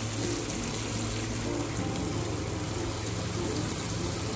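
Water poured from a jug into a wok of fried spice paste, a steady pour into the pan.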